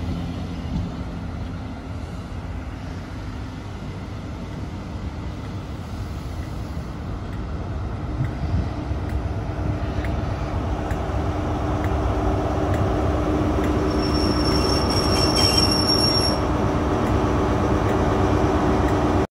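A GWR InterCity 125 High Speed Train rolling past at close range: the Mk3 coaches' wheels rumble on the rails. The rear Class 43 diesel power car's engine grows steadily louder in the second half, with a brief high squeal from the wheels late on.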